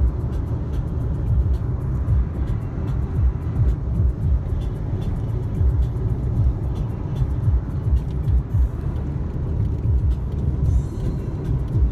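Steady low road and engine rumble inside a car driving at highway speed, with music playing faintly along with it.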